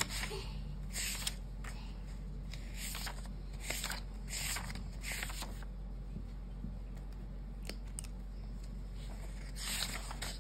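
Paper handling on a paperback book: several short scratchy rustles in the first half, then pages flipping about ten seconds in, over a low steady hum.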